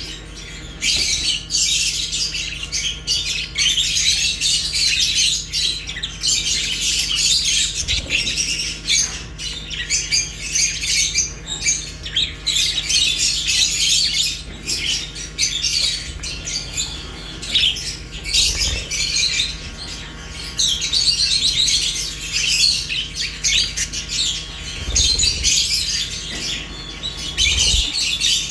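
Many budgies and lovebirds chirping and chattering together in a dense, continuous high-pitched din.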